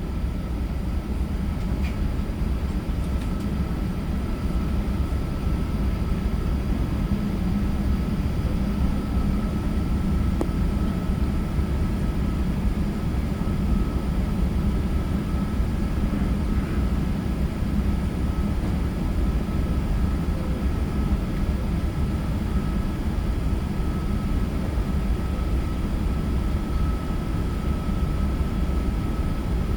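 Steady drone of an Airbus A380-800's engines and airflow heard inside the cabin, with a thin steady whine above it.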